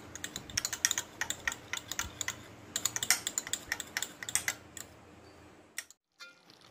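A spoon stirring a thick yogurt mixture in a glass bowl, tapping and clicking rapidly and irregularly against the glass. The clicking stops about a second before the end.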